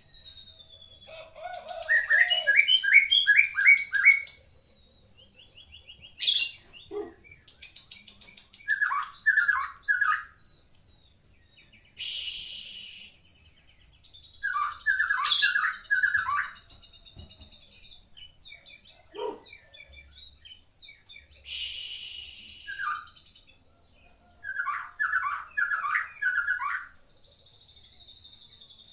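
Medan-type white-rumped shama singing a varied song: several phrases of four to six quick, descending whistled notes, with harsh rasping bursts between them, a few low swooping notes and a long buzzy note near the end.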